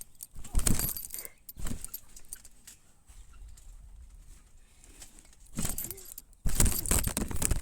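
A bunch of keys jangling in several short shakes, with a louder, longer jangle near the end.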